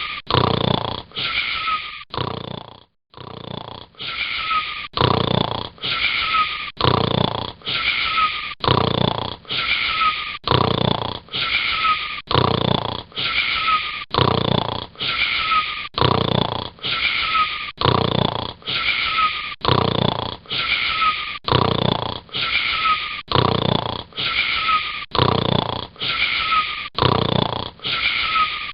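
A short snore with a whistling wheeze, repeated over and over at a quick, very even pace, with a falling whistle in each repeat. There is one brief break about three seconds in.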